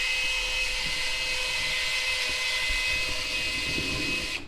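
Power drill running at a steady speed with a constant high whine, cutting off abruptly near the end.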